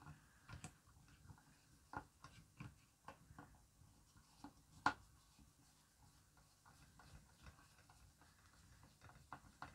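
Faint scattered clicks and taps of small screws and metal chassis parts being handled and fitted by hand, with a sharper click about five seconds in.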